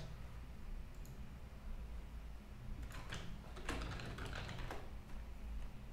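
Computer keyboard typing in short bursts of keystrokes: a single tap about a second in, a few near the middle, then a quicker run of keys.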